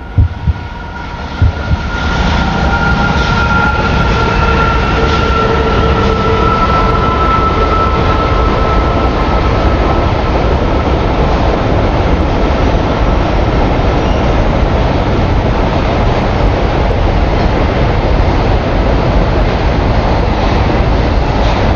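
A train running on rails: a steady, loud noise that swells up about two seconds in, with faint drawn-out tones sliding slowly down in pitch over the first several seconds.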